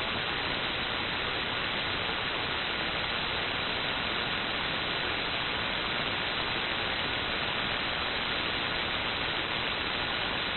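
Steady band static from an Apache Labs ANAN 7000DLE MkII receiver tuned to 75-meter lower sideband while nobody is transmitting. The hiss stops sharply at about 4 kHz, the width of its receive filter, and a faint steady whistle sits under it.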